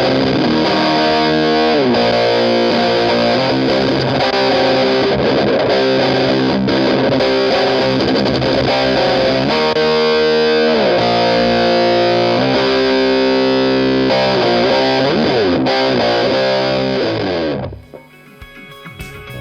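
Electric guitar played through a Walrus Audio Iron Horse LM308 distortion pedal: heavily distorted chords with sliding changes between them. Near the end the distorted sound cuts off suddenly and a much quieter, cleaner guitar tone follows.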